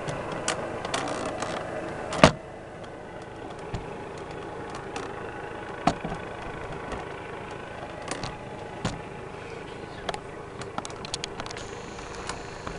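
Steady drone of a hovering helicopter heard at a distance, with scattered small clicks of the camera being handled. A loud sharp click about two seconds in, after which the drone is a little quieter.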